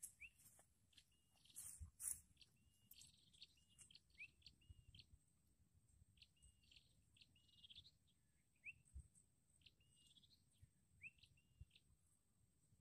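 Faint, repeated short chirps of small birds, some flat and some rising in pitch, scattered through the quiet. A couple of sharp clicks come about two seconds in.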